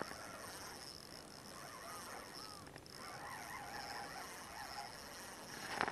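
Steady high-pitched insect drone with faint bird calls, a few wavering chirps from about two to five seconds in.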